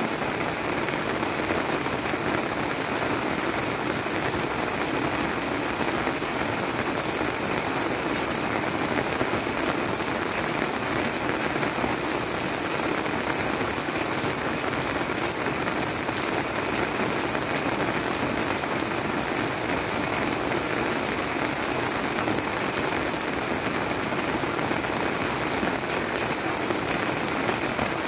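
Steady monsoon-season rain falling on leafy plants: a dense, even patter of raindrops on wet leaves that does not let up.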